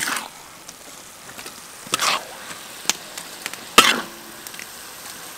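Curry paste sizzling in a metal wok as it is stir-fried, with a metal spatula scraping and clinking against the pan a few times.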